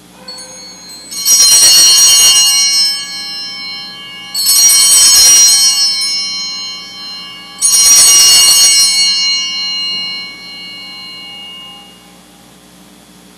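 Altar bells (sanctus bells) shaken three times, about three seconds apart, each ring a bright jangle of high tones that fades slowly. They mark the elevation of the host at the consecration of the Mass.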